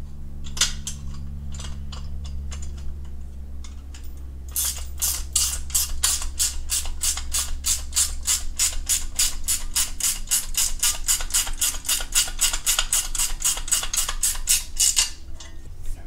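A few scattered light clicks of small metal parts being handled, then rapid, very even ticking, about five ticks a second, starting about four and a half seconds in and stopping just before the end, over a steady low hum.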